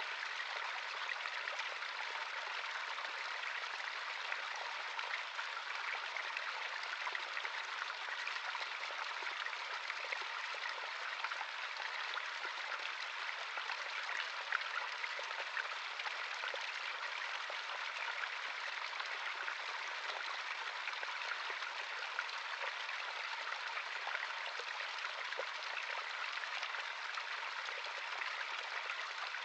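Small stream of running water flowing steadily over rocks, a continuous bubbling rush with fine splashes.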